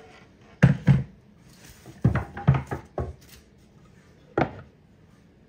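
Kitchen clatter as a stainless mixer bowl and a round wooden board are knocked and set down on a countertop: two sharp knocks about a second in, a quick run of knocks a couple of seconds in, and one more near the end.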